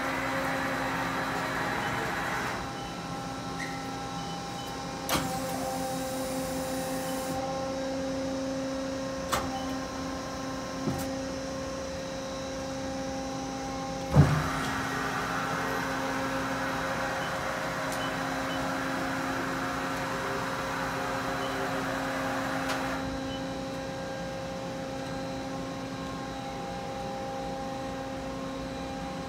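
Ikegai TU-30LL CNC lathe standing powered up and idle: a steady machine hum made of several held tones, with a hiss that rises and falls. A few light clicks and one sharp knock about halfway through.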